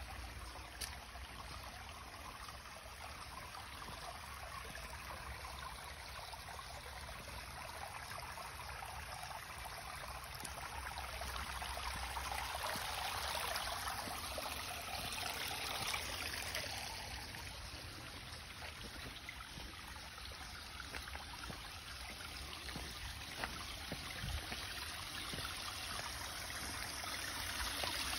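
Shallow creek water trickling and running over flat shale ledges, swelling about halfway through and again near the end as a small cascade over a ledge comes close.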